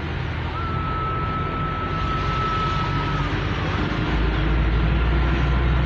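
Vehicle cabin noise while driving on a wet road: the engine running with tyre hiss from the wet tarmac. A faint steady high whine runs through it, and the low engine sound grows louder about four seconds in.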